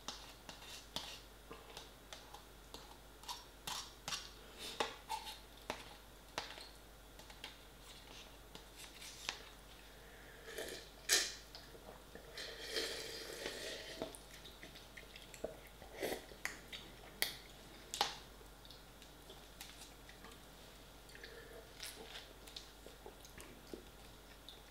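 Slurping and chewing instant pot noodles eaten from the cup with a fork: many short clicks and taps of the fork against the cup, with a longer slurp about halfway through.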